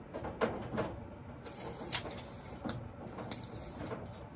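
Galvanized sheet-metal ductwork being worked by hand: a handful of irregular sharp taps and clanks of tools on the metal, with a short scrape about one and a half seconds in.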